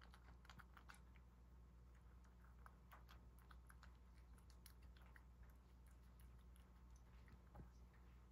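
Domestic cat eating from a ceramic bowl: faint, irregular little clicks of chewing, over a steady low hum.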